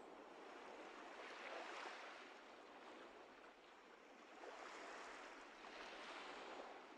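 Very faint ocean-wave ambience, a soft rushing wash that swells and eases twice.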